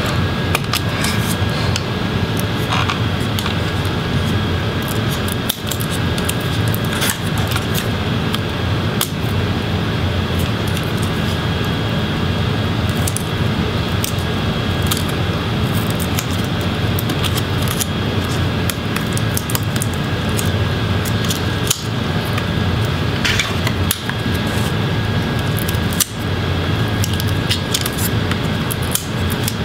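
Small plastic clicks and ticks of laptop ribbon cables and connectors being unplugged from the motherboard, scattered over a steady background noise.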